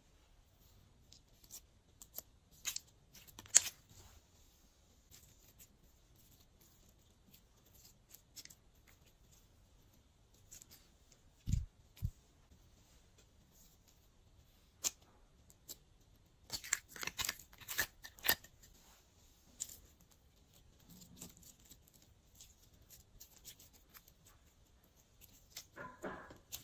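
Sticky slime being pressed and stretched by hand while things are mixed into it, making scattered sharp clicks and crackles. A dense run of clicks comes about two-thirds of the way through, with a dull thump near the middle.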